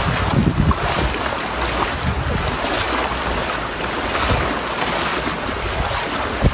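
Water splashing and sloshing in repeated surges as a person wades through a shallow river in rubber boots, with wind rumbling on the microphone.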